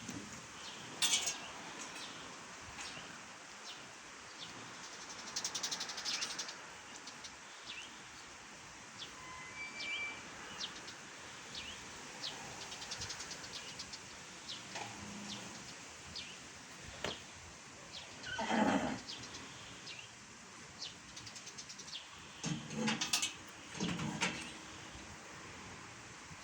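A horse whinnying, once about two-thirds of the way in and again twice in quick succession near the end, with short chirps and clicks in between.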